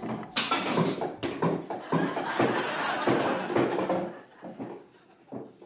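Pool balls clacking against each other on a pool table as hands grope among them: a run of knocks that dies away about four seconds in.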